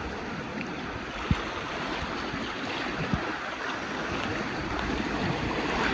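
Rushing river water in rapids: a steady wash of noise that slowly grows louder, with two brief low knocks.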